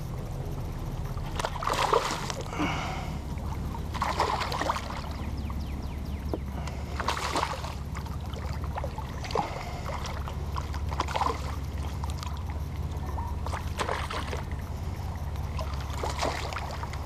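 Hooked snook thrashing at the surface beside a kayak: a series of short splashes every two or three seconds, over a steady low rumble.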